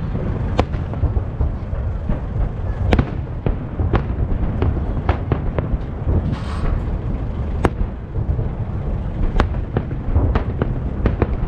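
Festive fireworks salute: shells bursting in an irregular string of sharp bangs, roughly one a second, over a continuous low rumble, with a brief hiss about halfway through.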